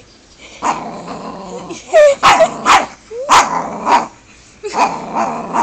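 Angry dog under the blankets barking and snarling in a string of sharp bursts, defensive at being bothered.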